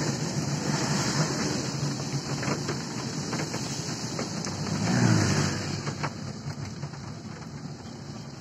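Water shooting from a burst large water main, with the spray falling back like heavy rain: a steady rushing hiss that swells about five seconds in.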